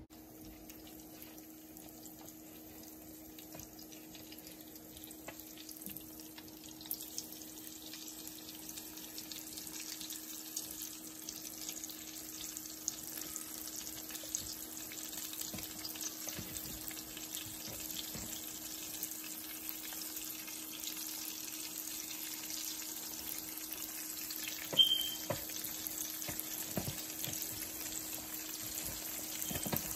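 Flour-dredged winter flounder fillets frying in oil in a pan: a steady sizzle with small crackles that grows louder over the first several seconds, with a sharp pop about 25 seconds in.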